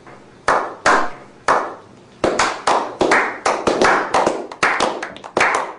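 A small group of people clapping: a few slow, spaced claps that quicken into faster, denser applause from about two seconds in.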